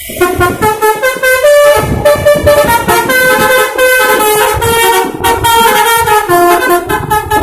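Bus's Basuri V3 'telolet' multi-tone air horn playing a fast melody, its notes changing several times a second.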